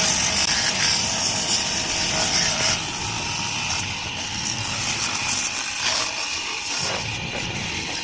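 Jet-pump pressure washer spraying water into the folds of a front-loading washing machine's rubber door gasket: a steady hiss of the water jet with the pump running underneath.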